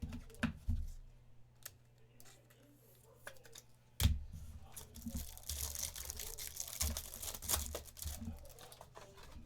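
A few light knocks, then a sharp knock about four seconds in followed by about three seconds of tearing and crinkling: a foil trading-card pack being ripped open.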